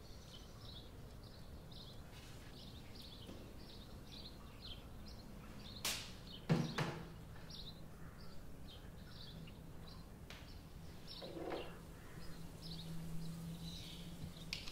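Faint birds chirping in the background throughout. A click and then a louder knock about six and a half seconds in, as a small portable air purifier is set down on a desk.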